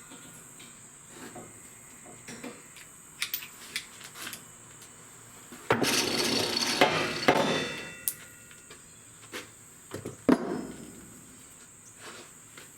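Steel rod and square tubing clinking and knocking as they are handled and fitted together. About halfway through comes a harsh noisy burst of about two seconds from metalworking on the frame.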